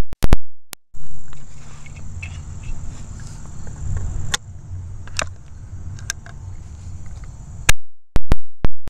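Single-shot 20-gauge break-action shotgun: sharp, clipped cracks with dead gaps in the first second, then insects chirping steadily while the gun is broken open and reloaded, with a few metallic clicks. Near the end another shot overloads the recording into a string of sharp cracks.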